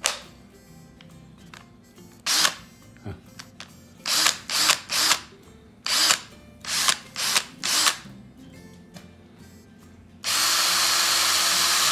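Parkside PSBSA 20-Li B2 cordless drill: a click as the battery pack is pushed home, then about eight short blips of the motor on the trigger, several in quick threes. About ten seconds in the motor starts and runs steadily at a constant speed.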